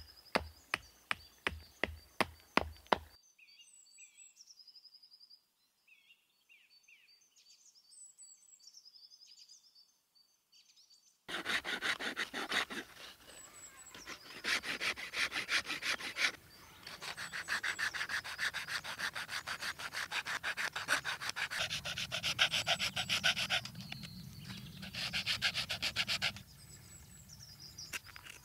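Small hand-forged hacksaw, a replica of a Viking-age one, sawing through wood in quick rasping back-and-forth strokes for about fifteen seconds. Before the sawing there is a quick run of about ten sharp knocks, then a few seconds of birds chirping.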